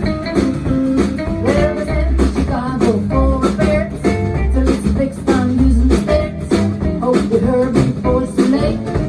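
Rock and roll band playing an instrumental break: an electric guitar lead over bass and drums.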